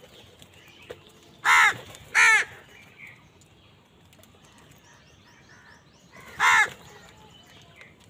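House crows cawing: two harsh caws close together about a second and a half in, then a third about four seconds later.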